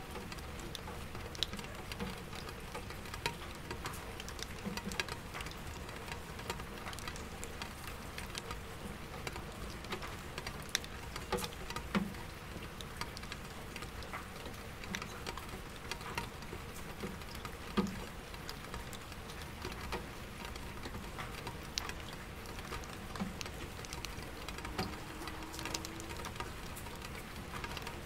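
Light rain on window glass and an empty bucket: irregular tapping drops with a few louder plinks, over a steady low city hum.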